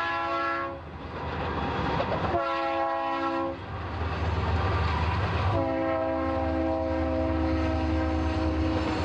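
Union Pacific diesel freight locomotives passing with their air horn sounding: a long blast that cuts off under a second in, a short blast a couple of seconds later, then a long blast from about halfway through that is still held at the end. Under the horn, the low rumble of the train rolling by grows louder from about four seconds in.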